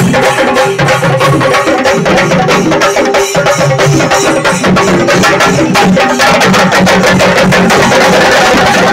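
A chenda melam: many Kerala chenda drums beaten together with curved sticks in a fast, dense, continuous roll. The playing grows brighter and denser about six seconds in.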